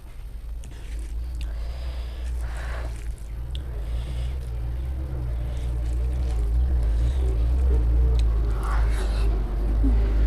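Close-up eating sounds: chewing, biting and squishing of food, with scattered small clicks. A steady low rumble underneath grows louder toward the end and is the loudest sound.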